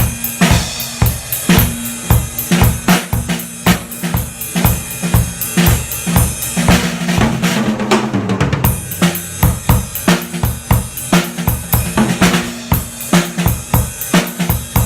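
Ash stave-shell drum kit (DiG Drums Crestone Series, with a DiG Custom #3 snare) played in a steady groove of bass drum and snare, heard from behind the kit. About halfway through a busier fill falls in pitch before the groove resumes.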